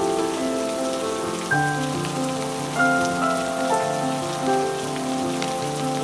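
Steady rain ambience under soft background music of long, held notes; the chord changes about a second and a half in.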